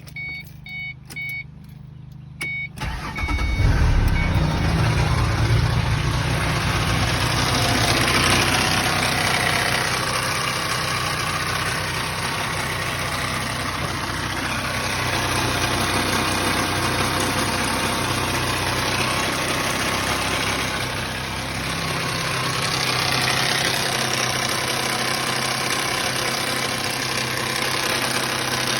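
A warning chime beeps several times, then the 2005 Ford Mustang's 4.0 L V6 cranks and starts about three seconds in and runs on steadily. It runs with the rattling noise that comes with its low oil pressure warning.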